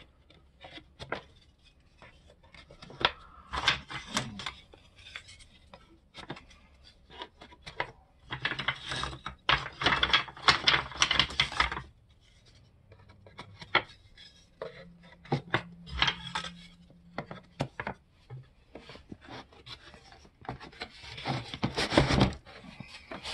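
Wooden beehive frame bars being fitted into a frame-assembly jig: scattered light clicks and knocks of wood on wood, with two longer stretches of wood rubbing and sliding as pieces are pushed into their notches, the later one the loudest.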